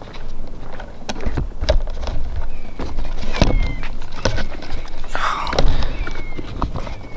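Handling noise as a camera is moved and set down on a wooden boardwalk bench: a string of knocks and thumps with a rustle about five seconds in. Short, high, falling chirps come and go behind it.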